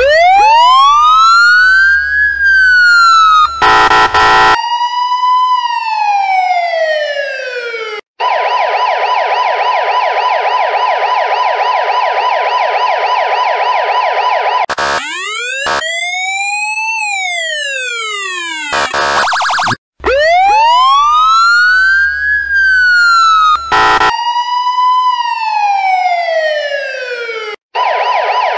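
A run of emergency-vehicle siren sound effects: a slow siren wind-up rising and falling over a low rumble, cut by a short horn blast, then a rapid warbling yelp siren for about six seconds, then one slow wail rising and falling. A second horn blast leads into the wind-up and another horn blast again, and near the end the rapid yelp starts again.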